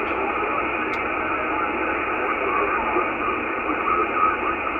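CB radio receiver putting out steady static hiss from the 11-meter band between transmissions, with a brief click about a second in.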